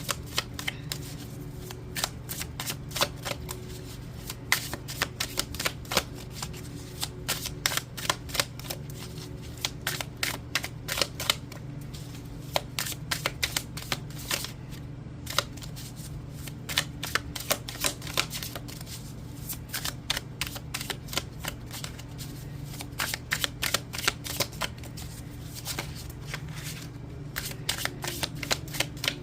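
A deck of oracle cards being shuffled by hand: a long run of quick, irregular card clicks and slaps, over a low steady hum.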